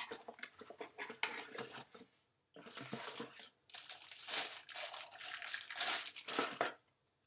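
Clear plastic bag crinkling and rustling in fits and starts as it is handled and pulled off a small packaged item, stopping shortly before the end.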